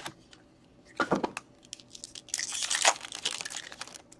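A trading card pack's wrapper being torn open and crinkled: a short crackling burst about a second in and a longer one around the middle.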